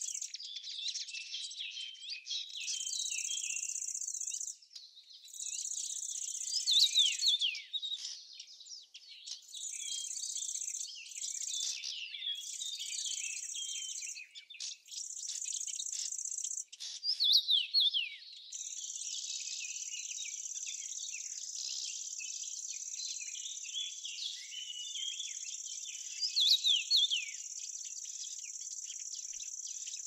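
Insects trilling in a high, steady band that comes in bursts of a second or two and then runs unbroken from a little past halfway, with small birds chirping throughout. Three louder runs of quick chirps stand out, about a quarter, a half and nine-tenths of the way through.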